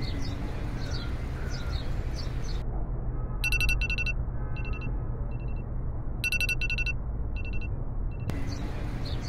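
A mobile phone ringtone: a short tune of bright electronic beeps, played twice over a steady low hum. Birds chirp before and after it.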